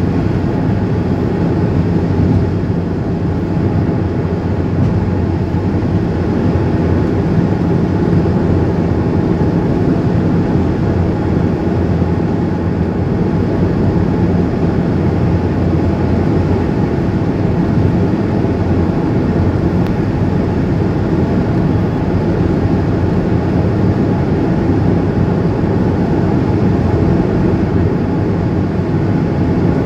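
Steady road noise and engine hum heard inside a car cabin while driving along a highway: an even low rumble from the tyres and engine that does not change.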